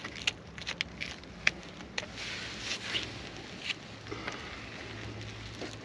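A new asphalt shingle being worked into place on a roof: a rustling scrape with several sharp clicks and taps, over a steady low hum.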